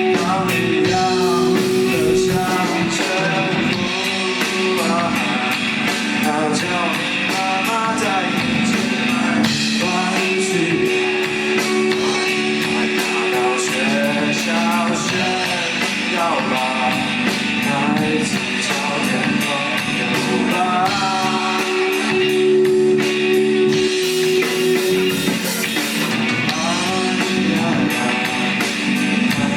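Rock band playing live: electric guitars and drum kit with a sung lead vocal line.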